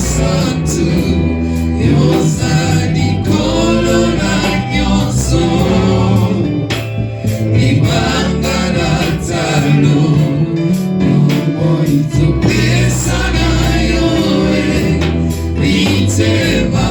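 Gospel music: a group of voices singing over a band, with a strong bass line and regular drum hits.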